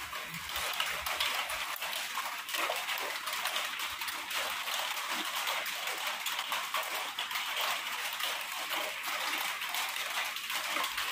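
Lemon juice squeezed by hand, trickling and dripping into a steel bowl of spice powders and oil, as fine patter over a steady background hiss.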